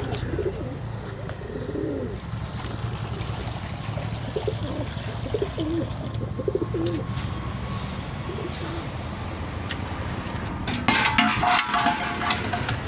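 Domestic pigeons cooing, short low warbling coos repeated over a steady low hum. Near the end comes a brief, louder burst of knocking and ringing.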